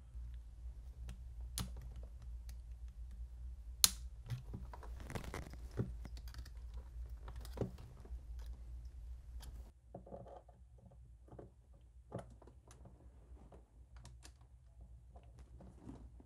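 Faint, scattered clicks and scrapes of a small plastic power switch being handled as its metal retaining tabs are pressed back in place with pliers, with one sharper click about four seconds in.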